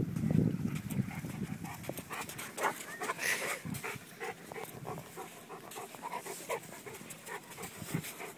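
Wind buffeting the microphone for about the first second, then a dog panting close by in quick, rhythmic breaths, out of breath from play.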